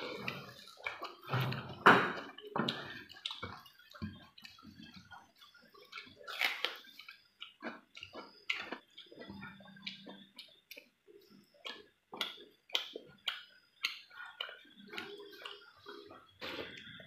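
Close-miked eating by hand: fingers squishing and mixing rice with curry on a metal plate, and wet chewing and lip smacks. It comes as an irregular run of short clicks and smacks, the loudest about two seconds in.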